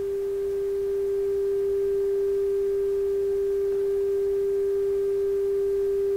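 A steady, pure, mid-pitched test tone from the Pye 39HC receiver's loudspeaker: the signal generator's modulated 455 kHz signal getting through on the AM band, the signal the 455 kHz trap is meant to knock down.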